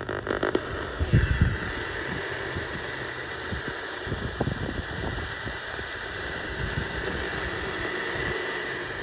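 Heavy radio static from a weak, badly received broadcast: a steady hiss that comes in about a second in, after a few low knocks.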